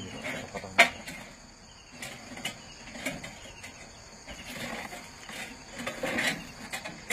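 A plastic jerrycan being handled and worked on by hand: one sharp knock about a second in, then scattered small taps and rustles. Insects chirr steadily in the background.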